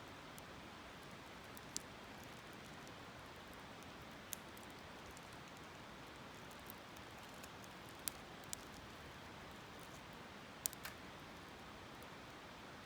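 Campfire crackling: sharp pops every couple of seconds, a close pair near the end, over a faint steady rush of flowing river water.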